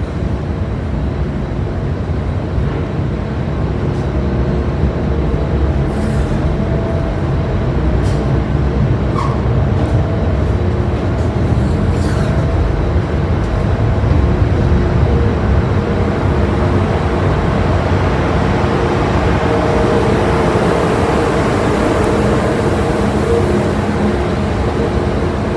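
Steady low rumble of the M/V Kaleetan car ferry's engines and machinery, with a few steady hums above it and a few faint clicks.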